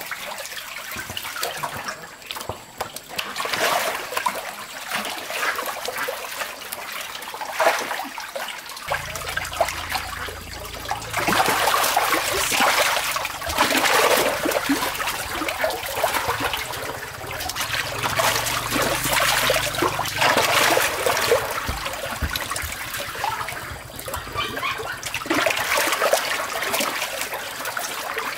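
Shallow water splashing and pouring in repeated surges as a perforated plastic basket scoops catfish from a drained concrete tank and water streams back out through it, with fish thrashing in the shallows.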